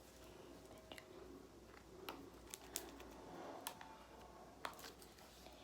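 Faint, scattered light clicks and taps, about half a dozen, from a phone being handled.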